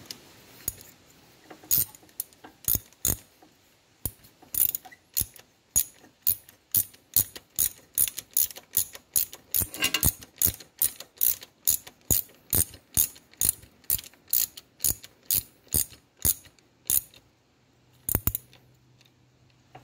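Hand ratchet clicking as it tightens the nut holding the water pump impeller on a 2007 Polaris Sportsman: a few scattered clicks, then a steady run of about three clicks a second, and a last close pair near the end.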